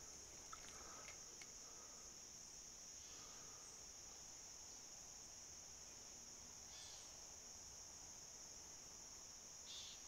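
Faint, steady, high-pitched insect chorus, a continuous cricket-like trill.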